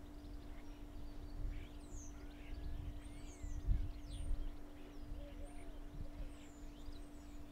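Outdoor ambience of songbirds chirping and twittering in short high calls, over a low rumble and a steady low hum.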